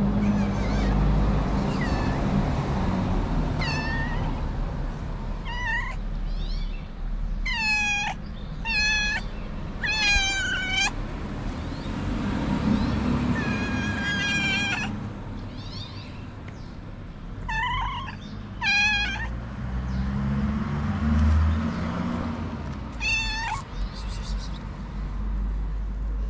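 White street cat meowing repeatedly while being stroked, giving short meows, some in quick runs of two or three, over a steady low rumble.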